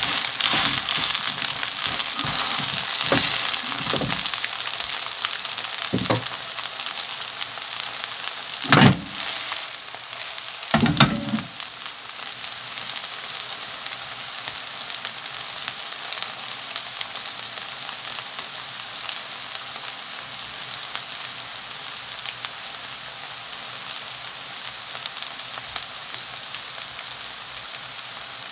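Soft tofu and zucchini pancake batter sizzling in hot oil in a frying pan. There are a few dull knocks in the first dozen seconds, the loudest two near the middle. After that comes an even, steady sizzle.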